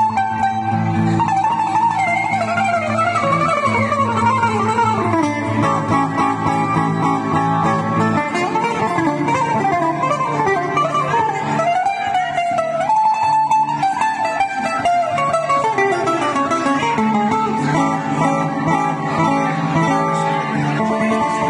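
Greek bouzouki playing a free taximi in the minore mode, with quick descending melodic runs and held high notes over an acoustic guitar holding steady chords underneath.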